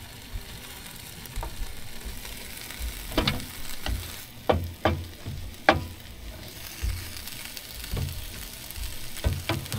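Ham sizzling steadily on a Blackstone 17-inch flat-top griddle, with a series of sharp spatula strikes on the cooking plate, most of them a few seconds in and a few more near the end.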